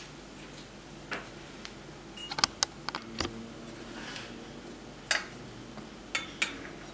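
Scattered light clicks and taps from hands setting dough balls down in a metal baking pan. The clicks come singly about a second in, as a quick cluster around two and a half seconds, and again near the end.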